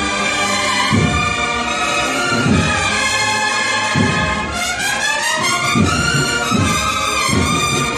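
Brass band playing a processional march: trumpets and other brass carry sustained, gliding melody lines over repeated bass drum beats.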